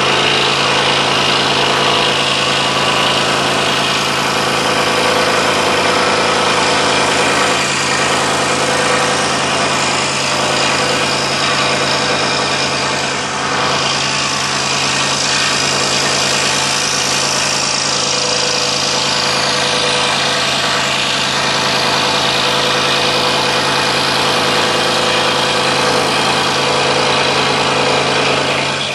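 Scroll saw running steadily, its reciprocating blade cutting the side profile through a thick wooden block held in a clamping jig, for a 3D compound cut.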